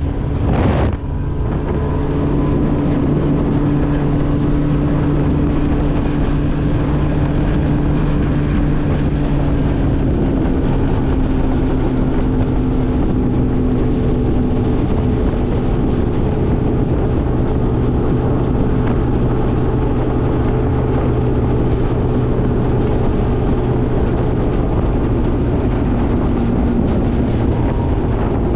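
Bass boat outboard motor running at high speed under way, with heavy wind noise on the microphone. The engine note holds steady, with a brief disturbance about a second in and a slight drop in pitch about ten seconds in.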